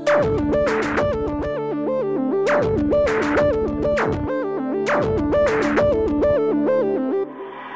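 Electronic background music: a bouncy synthesizer melody over a steady low drone, with a falling sweep about every two and a half seconds. It stops near the end, giving way to a soft hiss.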